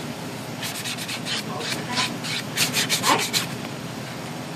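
A hand nail file rubbing on acrylic nails in quick back-and-forth strokes, in two short runs that stop about three and a half seconds in.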